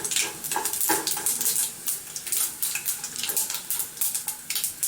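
Mustard seeds and dried red chillies frying in hot coconut oil: a steady crackling sizzle, with a spoon stirring and scraping in the pan.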